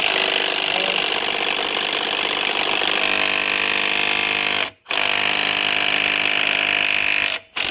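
Cordless Milwaukee impact wrench hammering on the harmonic balancer bolt in two long bursts, with a brief stop about 4.8 s in, without breaking the bolt loose.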